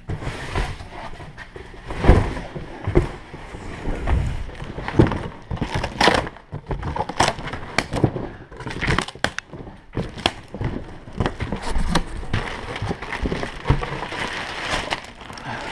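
Cardboard shipping box being handled and opened, with irregular knocks, scrapes and the crinkling of the plastic bag around a goose decoy; the loudest knock comes about two seconds in.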